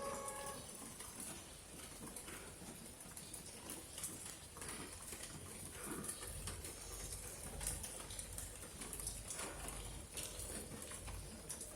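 Steady rain: an even hiss with scattered, irregular drips and taps.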